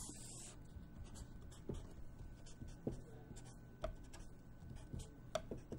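Felt-tip marker drawing straight lines on a sheet of paper: faint, scattered short strokes and taps of the tip.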